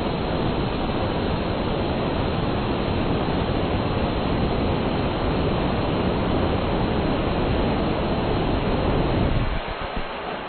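Compressed-air and propane aerospike rocket engine firing: a steady, loud rushing hiss of exhaust. It weakens about nine and a half seconds in as the air supply runs down and the flame dies back.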